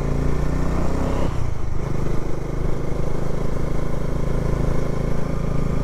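Bajaj Dominar 400 motorcycle's single-cylinder engine running on the ride. Its note falls over the first second, drops away briefly, then settles to a steady, lower-revving run.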